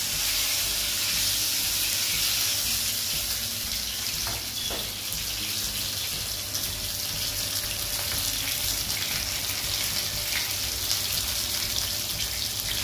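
Masala-coated whole fish shallow-frying in hot oil in a nonstick frying pan: a steady sizzling hiss with a few faint crackles.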